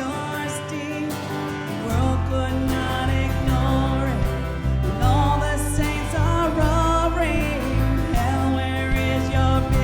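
Live worship-band music with a melody line over sustained chords; a heavy bass line comes in about two seconds in.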